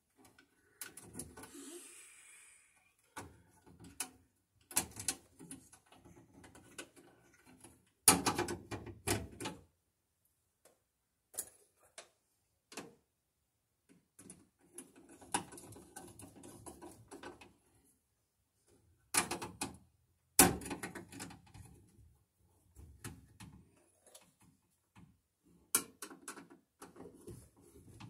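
Hand work in a metal electrical subpanel: scattered clicks, scrapes and rustling as a bare copper ground wire is worked into the ground bar and its terminal screw loosened and tightened with a screwdriver. A few sharper knocks against the metal box stand out, about a third and about two thirds of the way through.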